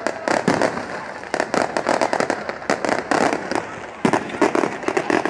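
Fireworks going off: a rapid, irregular string of sharp bangs and crackles, with a brief lull a little before the end.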